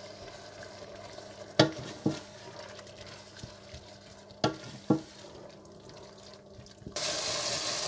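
Wooden spoon stirring a tomato and spice masala frying in oil in a stainless steel pot: a faint sizzle with a few sharp knocks of the spoon against the pot. Near the end a much louder frying sizzle starts suddenly.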